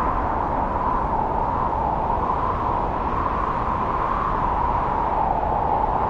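Strong wind blowing through forest trees in a snowstorm: a steady rushing with a hollow tone that wavers slightly up and down, over a low rumble.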